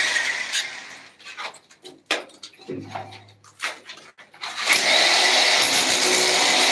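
A power tool running, winding down over the first second, a few knocks and clicks while it is stopped, then starting up again about five seconds in and running steadily.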